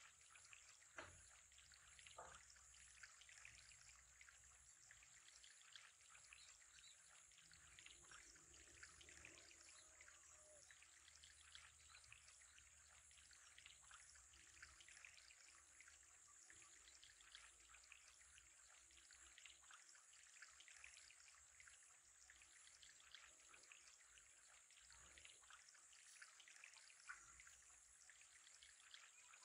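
Faint, steady trickle and splash of water running into an aquarium, with a few faint taps, the clearest about a second in.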